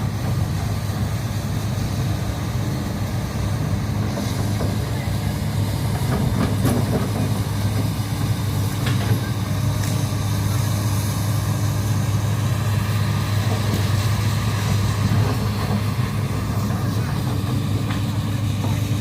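Komatsu PC200-8 hydraulic excavator's six-cylinder diesel engine running steadily under work, a constant low hum, with a few faint clicks or knocks.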